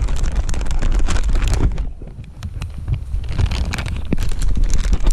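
Wind rumbling on a body-worn camera's microphone, mixed with crackling handling and scuffing noises as the wearer walks. It eases about two seconds in, then picks up again.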